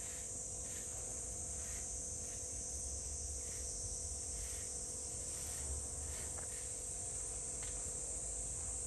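Steady high-pitched chorus of insects such as crickets, with a low wind rumble on the microphone.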